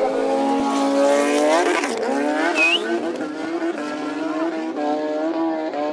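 Drag-racing sport motorcycle launching hard off the line. The revs climb steeply, drop at an upshift about two seconds in, then climb again as the bike pulls away down the strip, growing slightly fainter.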